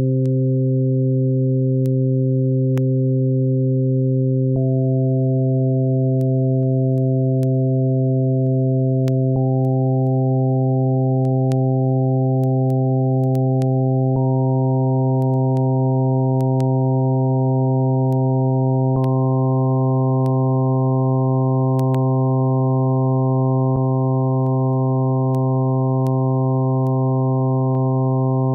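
Synthesized tone built from stacked sine waves on a low fundamental, the next harmonic added about every five seconds (four times), so the steady tone grows brighter step by step. Faint scattered clicks.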